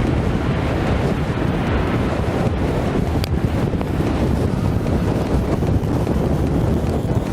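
Strong wind blowing across the microphone: a steady, deep rumbling noise.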